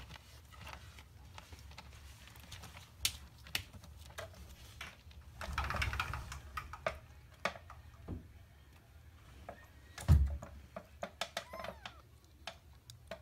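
Kitten's paws stepping and scratching in pellet cat litter, the pellets clicking and rattling in scattered bursts, with a denser scrabbling patch around six seconds in and one dull thump about ten seconds in.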